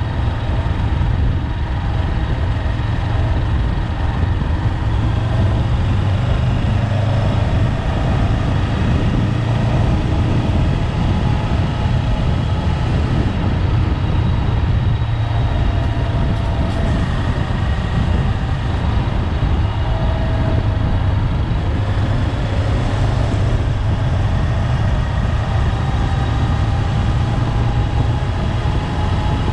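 Honda 400X motorcycle's parallel-twin engine running steadily under way, with a continuous rush of wind and road noise.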